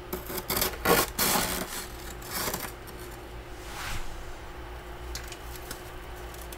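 Metal spatula scraping built-up frost off the inside of a freezer: several scraping strokes in the first two and a half seconds, then a softer one about four seconds in.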